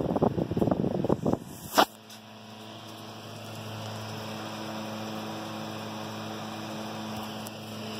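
Air from the running 1930s GE 10-inch oscillating fan buffets the microphone, then after a sharp click about two seconds in, the fan's electric motor gives a steady hum, heard from close behind the motor housing.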